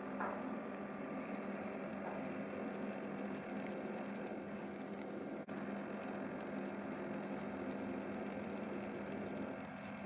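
A steady low hum of background noise, with a faint knock right at the start and a brief dropout about halfway through.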